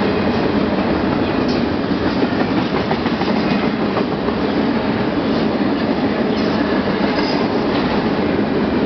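Double-stack freight train's loaded container well cars rolling past without stopping: a loud, steady rumble and rattle of steel wheels on the rails, with occasional clicks.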